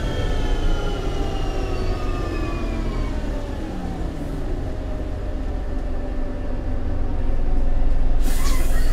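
Lower-deck interior sound of an MCW Metrobus double-decker on the move: a low drivetrain rumble with a whine that falls steadily in pitch over the first four seconds as the bus slows, and a short hiss near the end.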